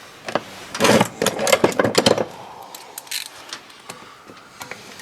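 Metal tools and parts clinking and knocking as they are handled: a cluster of sharp knocks in the first two seconds or so, then a few lighter clicks.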